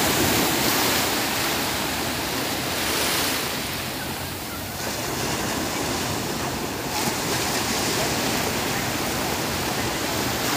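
Sea surf washing onto a flat sandy beach: waves breaking and running up the shore in a steady rush that swells and eases as each wave comes in.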